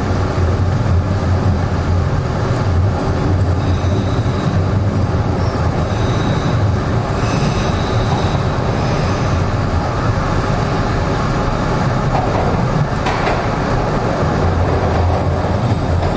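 Toronto subway train running through a tunnel, heard from inside the moving car: a loud, steady rumble of wheels on rails. A faint high-pitched wheel squeal comes in for a few seconds midway, and there is a single sharp clack about three seconds before the end.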